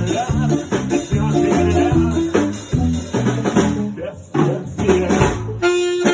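A live band playing an instrumental passage: bass and drums with a shaker rattling. The music thins briefly about four seconds in, then a held, sustained melodic line comes in near the end.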